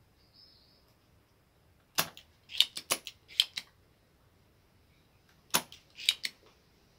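Spring-loaded solder sucker (desoldering pump) snapping and clicking as it is cocked and fired to pull molten solder from the joints of an amplifier board's output transistors. The sharp clicks come in two bunches: about six around two to three and a half seconds in, and three more around five and a half to six seconds in.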